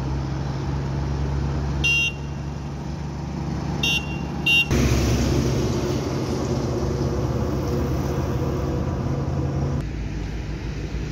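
Roadside highway traffic with a steady low engine rumble, and three short vehicle horn toots: one about two seconds in and two close together around four seconds. The traffic noise swells a little just after the last toot.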